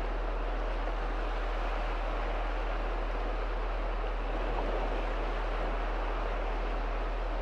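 Small sea waves breaking and washing in shallow water: a steady rushing wash that swells slightly about four and a half seconds in, over a steady low hum.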